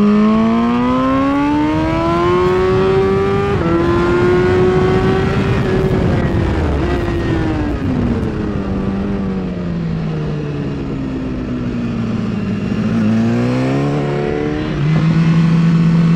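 A 2016 BMW S1000RR's inline-four engine at racing speed, heard from the bike with heavy wind rush. Its pitch climbs, steps abruptly about three and a half seconds in, then falls for several seconds as the bike slows. It rises again and jumps up near the end.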